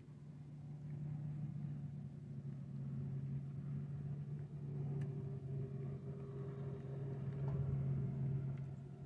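A motor running with a steady low hum, growing louder after the first second and easing slightly near the end.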